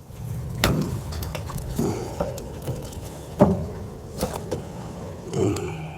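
Metal knocks and clanks from hand work on a York package unit's loose, worn drive belt, over a steady low hum. The three sharpest knocks come about a second, three and a half and four seconds in.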